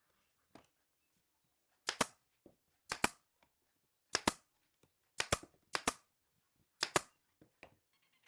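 Six sharp double cracks, spaced about a second apart. Each is a pair of hard strikes a split second apart, typical of a fastening tool driving into wooden slats, with a couple of fainter knocks near the end.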